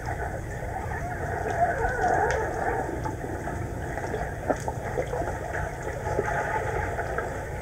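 Underwater pool ambience picked up by a camera resting on the pool floor: a steady, muffled rumble and hiss with scattered faint clicks and crackles.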